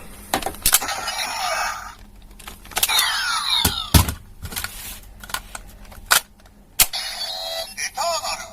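DX Lost Driver toy belt being operated: sharp plastic clicks from the memory slot and switch, and electronic sound effects from its small speaker, including a gliding sweep about three seconds in and short wavering tones near the end.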